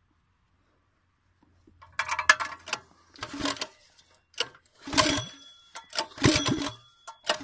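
Predator 212cc engine on a mini bike being pull-started: the recoil starter is yanked again and again, a short rattling crank about every second, and the engine does not catch.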